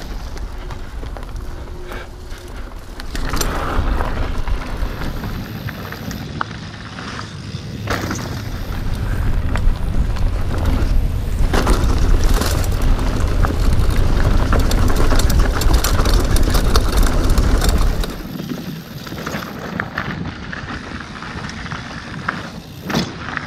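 Mountain bike riding fast down a dirt forest trail: the tyres running over the dirt and the chain and frame rattling over bumps, with wind buffeting the chest-mounted action camera's microphone. The wind rumble swells in the middle and drops away suddenly near the end.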